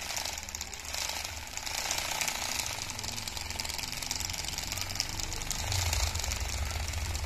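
Small DC motor spinning a homemade model V-twin engine through a rubber belt, its plastic pistons and linkage rattling rapidly. It switches on abruptly at the start and then runs steadily.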